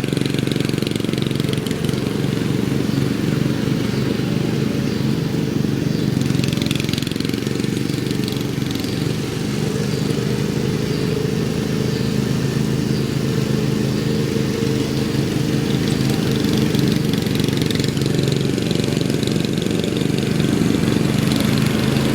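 Lawn mower engine running steadily at a constant speed, a continuous low drone.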